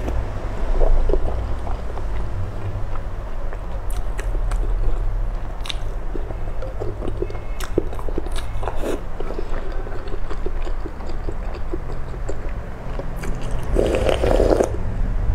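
Close-miked eating sounds: wet chewing and biting of soft food such as boiled egg and noodles, with many small mouth clicks. Near the end comes a louder slurp of broth from a spoon, lasting about a second.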